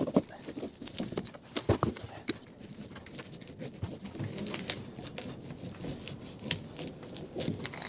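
Hand-held rubber seam roller being pressed and rolled over flashing tape on plastic house wrap: irregular clicks and crinkling rustle of the wrap and tape, loudest about two seconds in.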